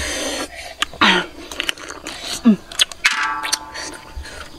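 Two people eating cooked crab: sharp clicks of shell cracking and lip-smacking, with short falling murmurs about a second in and again past halfway. A brief steady buzzing tone comes in near the end.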